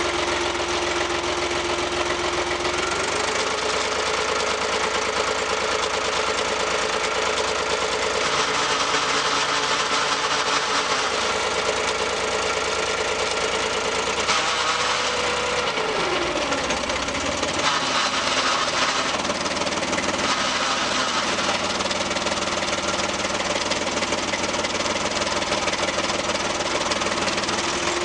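Foton 254 tractor's diesel engine running with a steady mechanical noise from the driveline. The tone shifts, stepping up about three seconds in and gliding down around the middle, as the clutch is worked. The owner hears a weird noise from the transmission or clutch with the pedal depressed and guesses an input shaft is wobbling inside the other or in the throw-out bearing tube.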